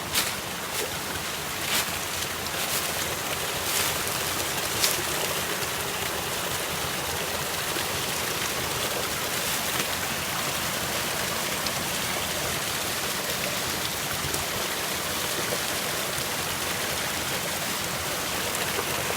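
Steady rush of water falling over a small waterfall and cascading down the creek, with a few sharp clicks in the first five seconds.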